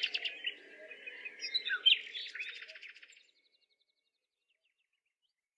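Birds chirping in quick, busy bursts of twittering notes, cutting off abruptly about three seconds in.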